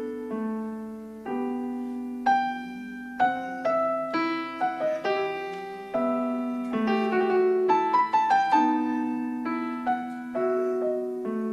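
Piano playing a slow, gentle piece: single notes and chords struck and left to die away, with a quicker flurry of notes about seven to eight seconds in.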